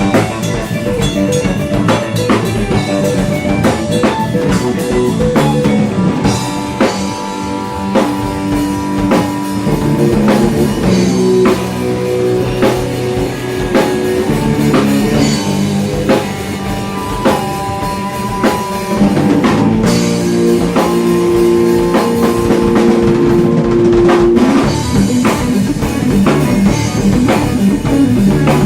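Instrumental progressive rock/jazz fusion played live by a trio: electric guitar, Fender Stratocaster by the uploader's tags, over a busy drum kit. Long held guitar notes ring out through the middle of the passage.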